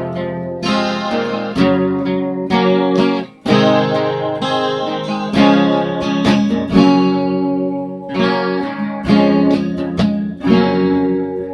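Guitar intro: chords strummed and picked in a steady rhythm, with no singing.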